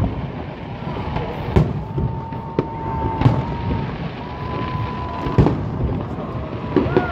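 Aerial fireworks shells bursting: a string of sharp bangs at irregular spacing, the strongest about a second and a half in and about five and a half seconds in, with a flurry of smaller bangs near the end. Between the bangs, a steady high whistle is held twice for about a second each.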